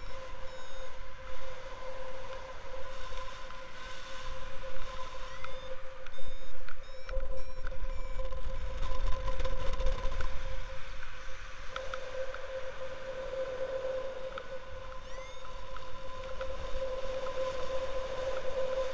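Wind on the microphone of a paraglider in flight, rumbling and gusting hardest around the middle, with a steady high tone underneath.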